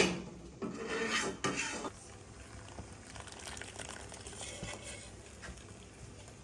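Steel kitchenware clattering against a cooking pot, with a sharp metallic clang at the start and more clinks over the next two seconds. Then a quieter stretch as milky tea is poured from a saucepan through a metal strainer into a ceramic bowl.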